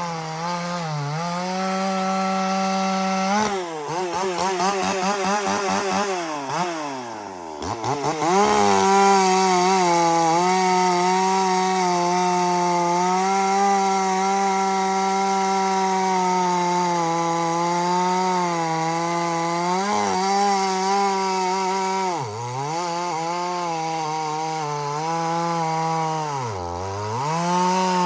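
Echo CS-4510 two-stroke chainsaw running at high revs while cutting wood. Its engine pitch sags and wavers deeply about four to eight seconds in, then holds steady, with two brief dips near the end.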